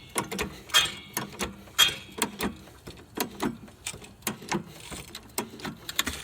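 Car's factory scissor jack being cranked up by its hand-turned handle: a steady run of metallic clicks and creaks, about two or three a second, as the car is lifted until the tire clears the ground.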